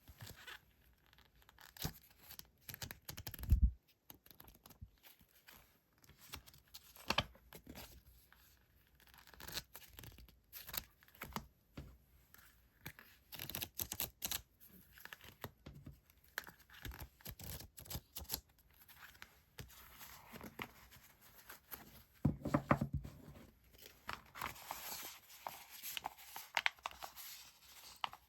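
Paper stationery and its packaging handled at a desk: crisp, irregular paper rustling and crinkling with scattered light taps and clicks. There is a low thump about three and a half seconds in, and a louder stretch of rustling near the end.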